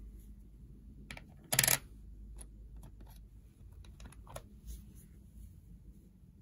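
Two-euro coins being handled: light metallic clicks, one louder clatter about one and a half seconds in, then a few scattered softer clicks.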